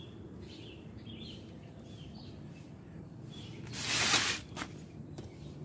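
Birds chirping in the background, with a short hiss-like noise about four seconds in, followed by a couple of faint clicks.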